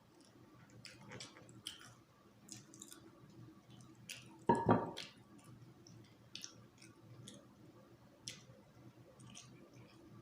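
Close-up eating sounds: wet chewing, lip smacks and small sucking clicks, with one louder short low sound about halfway through.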